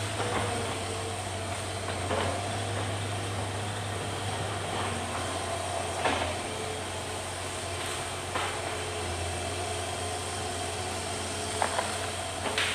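Hitachi Zaxis excavator's diesel engine running steadily, with a higher whine over it and a few sharp knocks scattered through, from the machine working at logs.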